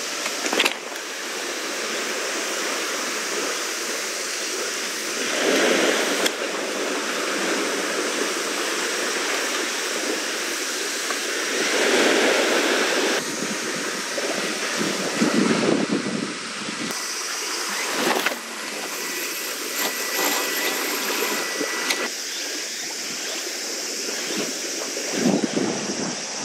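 Steady seaside rush of wind and water, swelling louder several times.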